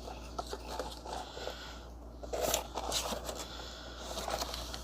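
Cardboard box and plastic packaging being handled and pulled apart: scattered rustles, scrapes and small clicks, with louder scraping rustles about halfway through and again near the end.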